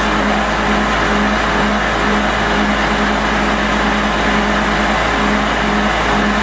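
Truck-mounted core drilling rig running at a steady speed: an even, unchanging machine drone with a constant low hum.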